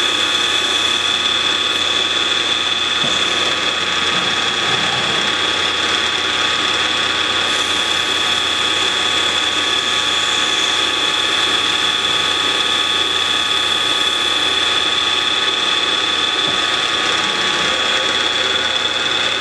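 PM-940 CNC mill spindle running steadily with a high whine while drilling holes in UHMW plastic, with the mist coolant spray hissing.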